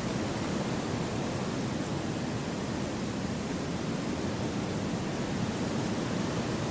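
Steady wind through forest trees, an even rushing hiss that holds level without gusts or breaks.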